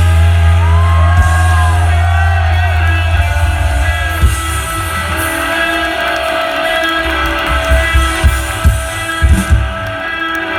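Live indie rock band playing: sustained guitar chords with bending notes over heavy bass. The heavy bass drops away about four seconds in, and several loud low drum hits come near the end.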